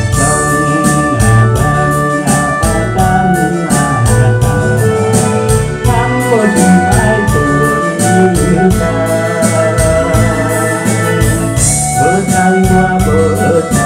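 Karaoke backing music with a steady beat.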